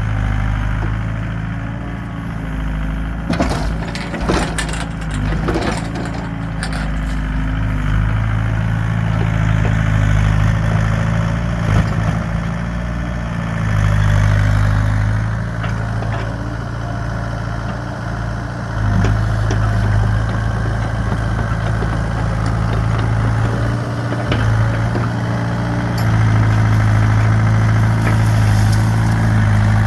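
Excavator's diesel engine running steadily, its note swelling and easing repeatedly as the machine works under load. A cluster of sharp cracks and snaps a few seconds in.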